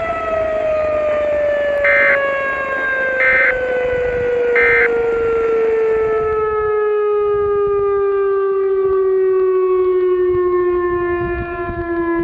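Outdoor tornado warning siren winding down, its pitch falling slowly. Three short beeps about a second and a half apart sound early in the wind-down.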